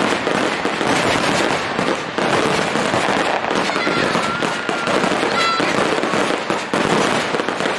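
Aerial fireworks shells bursting in rapid succession: a dense, continuous barrage of booms and crackling with no break. A brief high whistle sounds in the middle.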